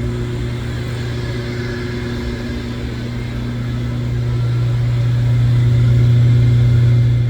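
Chilled-water air handler running: a steady low hum from the blower and its motor over rushing air, growing louder over the last few seconds.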